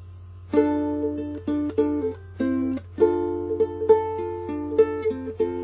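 Ukulele playing a chord introduction, the notes starting about half a second in, over a steady low hum.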